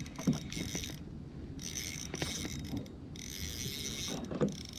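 Spinning fishing reel ratcheting in spells of about a second with short pauses between them, with a couple of short knocks.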